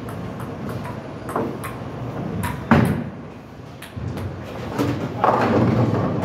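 Bowling alley lane sounds: a loud, sharp thud about two and a half seconds in, a bowling ball rolling down a wooden lane, and a rough clatter building near the end as the ball reaches the pins.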